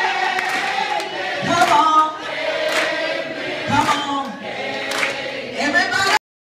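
A roomful of people singing together and clapping along about once a second. The sound cuts off suddenly near the end.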